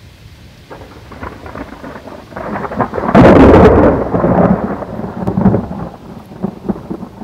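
Thunder over steady rain, swelling to a loud crack about three seconds in and then rolling away.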